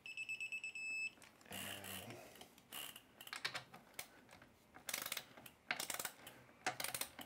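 Torque wrench ratcheting in quick runs of sharp clicks while tightening a Shimano crank arm's pinch bolts to the specified 12–14 Nm. A steady electronic beep lasts about a second at the start.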